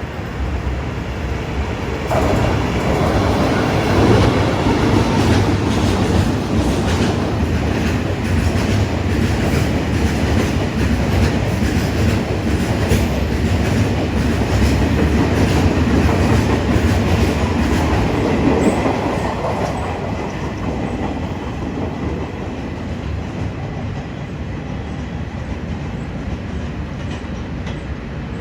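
Freight train passing, its wagons rumbling over the rails with scattered sharp knocks from the wheels. The noise jumps up about two seconds in, holds loud for most of the pass, and eases off over the last several seconds.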